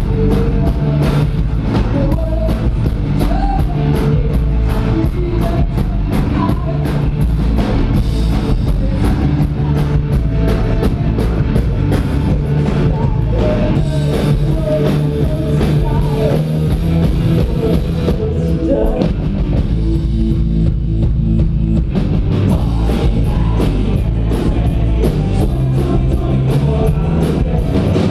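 Live band playing an up-tempo song: steady drum-kit beat with bass and electric guitar under a lead singer's voice. About twenty seconds in, the cymbals drop out briefly before the full beat returns.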